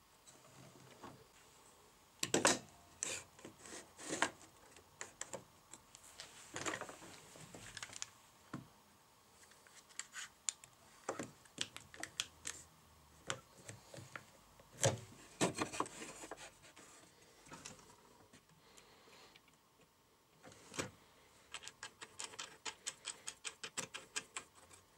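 Wooden jig parts and small hardware being handled and set down on a miter saw's metal table: scattered knocks and clicks, then a quick, even run of clicks, about five a second, near the end.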